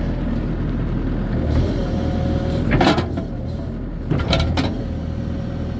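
Bobcat excavator's diesel engine running steadily, with a couple of sharp metallic knocks about three and four seconds in.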